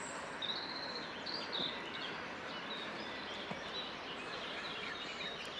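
Outdoor ambience: a steady low hiss of background noise with small birds calling, several short high whistled chirps in the first two seconds and fainter ones after.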